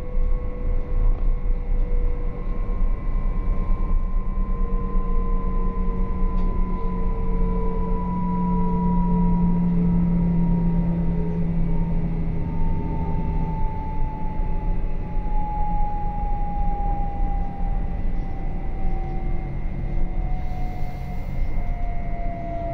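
Interior of a RABe 526 electric multiple unit on the move: a steady rumble of wheels on the track under the whine of the electric traction drive, which falls slowly and evenly in pitch as the train slows toward its next stop.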